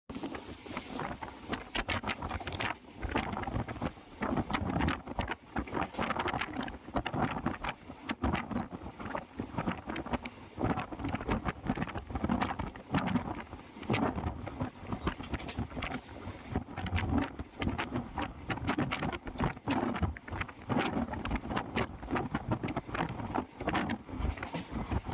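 Passenger train running: a steady rumble thick with irregular clatter and rattles from the wheels and carriage.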